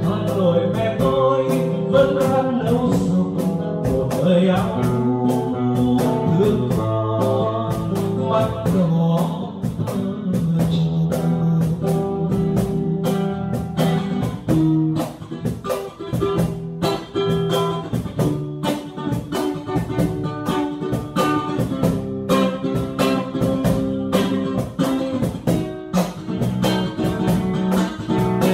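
Nylon- or steel-string acoustic guitar and a cajon playing a bossa-nova-style instrumental passage, the cajon keeping a steady beat under the guitar's chords and notes. Over the first several seconds a man's voice sings along without clear words.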